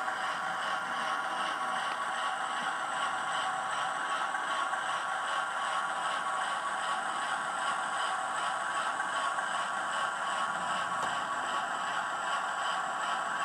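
Hornby class 08 model diesel shunter with a TTS sound decoder running on track: a steady running noise with a faint regular beat of about two a second.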